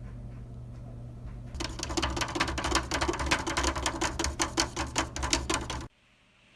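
A spoon stirring chocolate milk in a glass, clinking rapidly and evenly against the side for about four seconds, then stopping suddenly.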